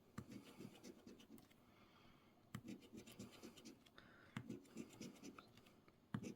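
A coin scraping the latex coating off a scratch-off lottery ticket: faint, quick, irregular scratching strokes with a few sharper scrapes.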